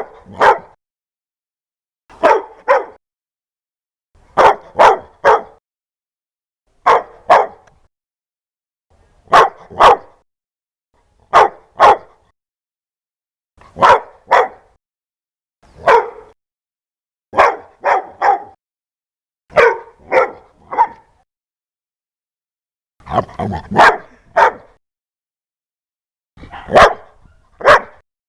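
A dog barking loudly in short volleys of two or three barks, repeated about every two seconds, with silence between volleys.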